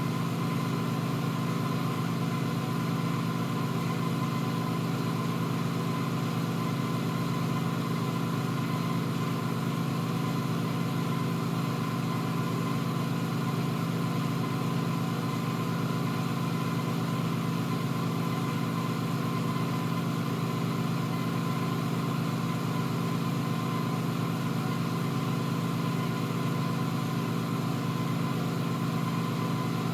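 Steady, unchanging machine hum with an even rushing noise underneath and a faint high tone above.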